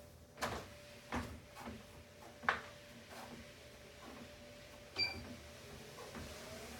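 Tunturi T40 treadmill making an unwanted noise: irregular sharp clicks and knocks over a faint steady hum, with a brief high beep about five seconds in.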